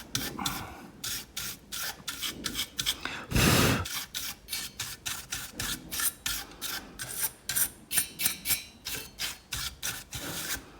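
Quick rubbing strokes of cleaning the inside of an opened Mac Mini, about three a second and getting faster later, with one longer, louder stroke about three and a half seconds in.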